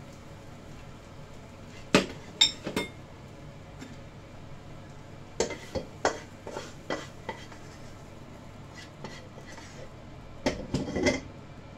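A spatula knocking and scraping against a wok, and a bowl clinking, as cooked food is tipped out of the wok. The clatter comes in short groups: a few knocks about two seconds in, more from about five and a half to seven seconds, and a final cluster near the end.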